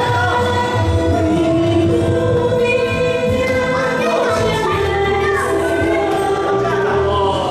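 Music with several voices singing long held notes together over a steady bass line.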